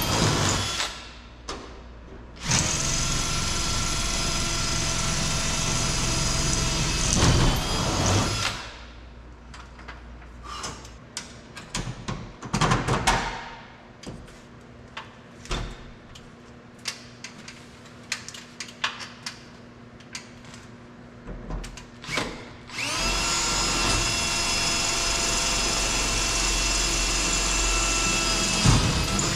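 Power drill running in two long runs of about six seconds each, drilling rivet holes through the sheet-metal patch on the truck cab. Between the runs come short clicks and knocks of handling.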